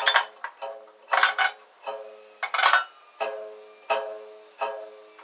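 The blade of a 9-inch Mastercraft bandsaw plucked by hand about ten times, unevenly spaced, each pluck a sharp twang that rings at the same pitch and dies away. Plucking the blade is a check of its tension.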